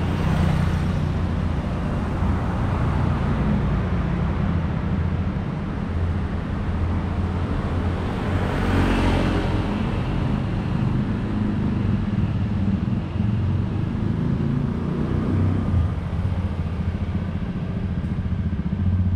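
Road traffic on a city street: cars and motorcycles passing, giving a steady rumble of engines and tyres. A motorcycle passes close about nine seconds in.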